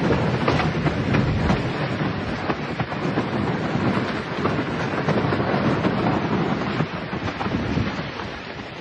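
Storm noise: a loud, steady rush of wind and heavy rain with many small sharp hits throughout.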